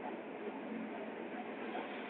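Steady running noise of a passenger train heard from inside the carriage: an even noise of wheels rolling on the rails, with no distinct knocks or changes.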